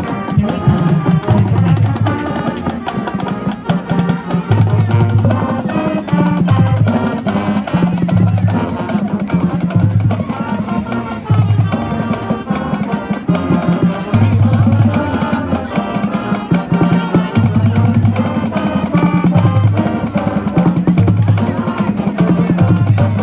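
Marching band playing, with brass over snare and bass drums in a steady beat.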